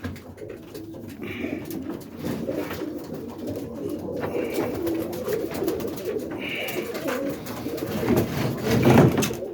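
Many roller pigeons cooing at once in a loft, a continuous overlapping murmur, with a few brief knocks and rustles among the birds.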